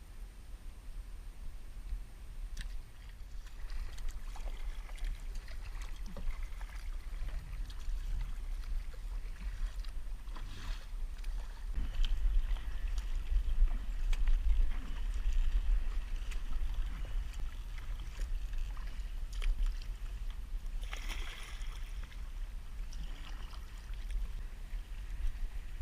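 Kayak on the water: water lapping and splashing against the hull, with scattered small knocks and clicks and a steady low rumble underneath.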